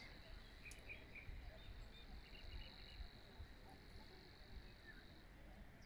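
Quiet lakeside ambience: a faint, steady, high-pitched buzz that cuts off near the end, a few soft chirps, and low wind rumble on the microphone.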